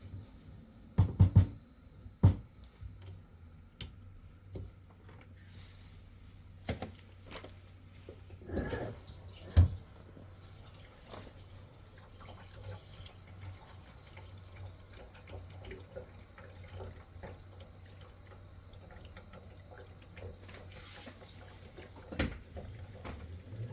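Sharp knocks and clunks as the plastic drain pipes under a sink are handled and tightened, with water running in the sink from about eight seconds in.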